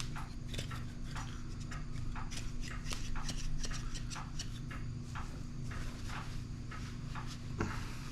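Irregular metal clicks and clacks of a rusted, WD-40-soaked one-handed maple-tubing tool being worked open and shut to free its seized joint.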